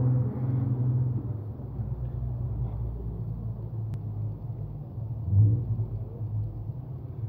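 Small two-stroke chainsaw idling with a steady low rumble, swelling briefly louder about five seconds in.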